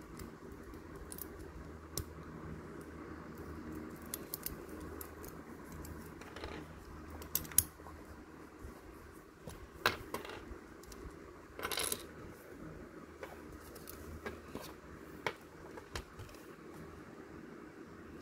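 Small plastic and metal Beyblade parts clicking and clacking against each other and onto a wooden table as the top is taken apart and the pieces set down: scattered sharp clicks, one every second or two.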